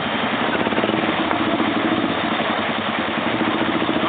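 ATV engine running steadily at an even, low speed, with a fast regular pulse.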